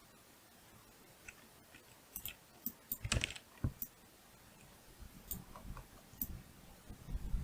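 Irregular sharp clicks of a computer mouse and keyboard being worked, about a dozen, loudest around three seconds in.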